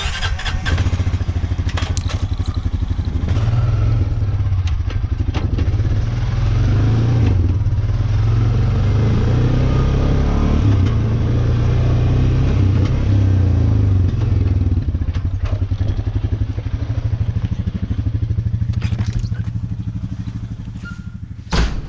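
Honda utility ATV's single-cylinder four-stroke engine running as the four-wheeler is ridden, pulling harder through the middle and easing off toward the end. A sharp knock sounds just before the end.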